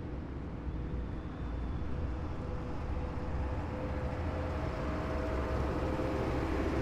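Heavy military vehicle's engine running with a deep rumble, growing steadily louder as it approaches.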